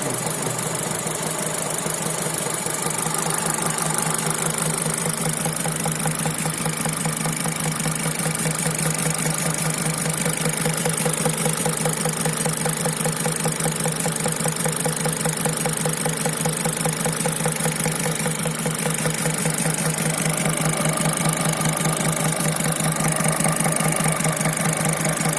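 Mitsubishi Pajero Pinin's 4G94 engine running with a fast, steady, even knocking. The uploader traced this knocking to the EVAP canister left unconnected from its purge valve by its rubber hose, under the intake manifold.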